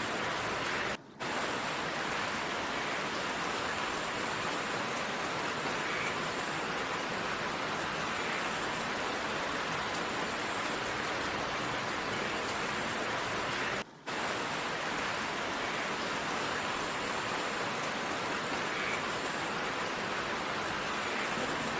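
Heavy rain falling in a steady downpour, an even hiss that cuts out for a split second twice, about a second in and near fourteen seconds in.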